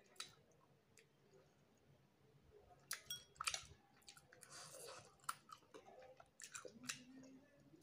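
Soft, wet chewing and mouth smacks of a person eating rice and fish curry by hand, with a cluster of sharper clicks from about three seconds in.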